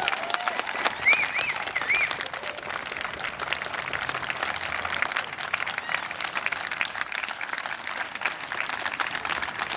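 A crowd applauding steadily after a speech, with a few short high calls a second or two in.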